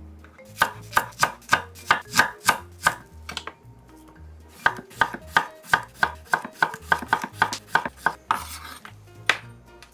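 Chef's knife slicing an onion and a cucumber on a wooden cutting board: two runs of crisp knife strokes knocking on the board, about three to four a second, with a short pause between them.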